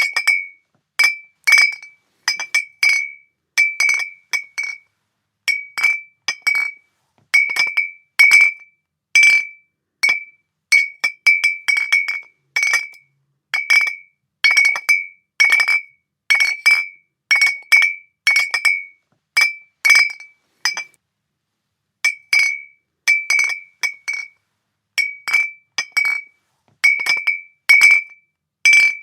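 Glass bottles clinking against each other in a long, irregular run of short strikes, about one or two a second, each ringing briefly with the same clear high tone, with a short pause about two-thirds of the way through.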